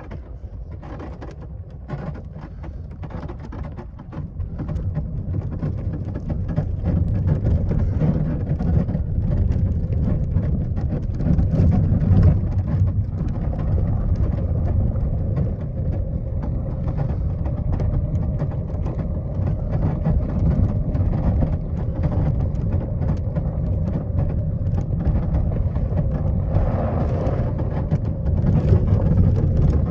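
Motor vehicle driving along a snowy track, its engine giving a steady low rumble that builds up over the first few seconds.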